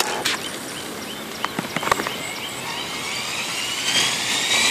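JR Forza 450 RC helicopter spooling up on the ground: from about halfway a whine sets in and rises steadily in pitch as the rotor speeds up. A few footsteps scuff on gravel before it.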